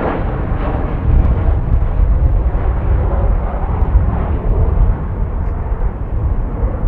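Jet airliner's engines at close range: a loud, deep, rough rumble.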